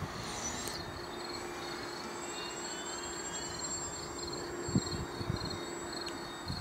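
Faint, steady drone of a HobbyKing Tundra RC plane's electric motor and propeller flying high overhead, under a rhythmic insect chirping. A couple of soft bumps come about two thirds of the way in.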